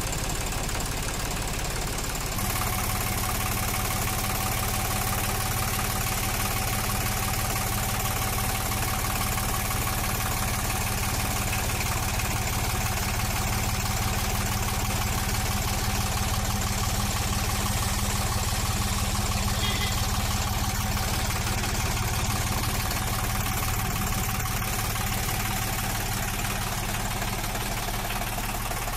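Deutz-Fahr Agrolux 70 tractor's diesel engine idling steadily, heard up close.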